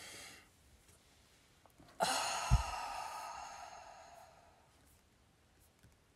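A woman letting out a long, audible sigh about two seconds in, sudden at the start and fading away over about three seconds, with a soft low thump just after it begins. It is preceded by the end of an in-breath.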